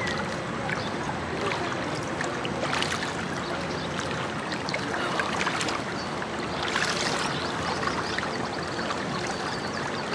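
Swimming-pool water sloshing and trickling as swimmers move through it: a steady wash with a few louder splashes, about three seconds in and again between five and seven seconds.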